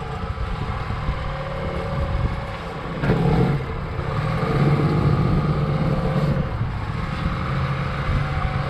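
Glass-bottom boat's motor running steadily, a low drone that grows a little stronger about three seconds in.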